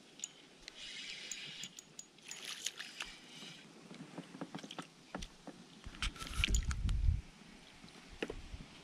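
Rustling and handling noises in an inflatable boat pressed into dry reeds, with light water sloshing and scattered small clicks. About six seconds in comes a brief low rumble of handling or wind on the microphone.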